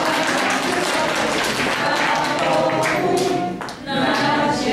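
A group of voices singing a Polish Christmas carol, with scattered clapping mixed in.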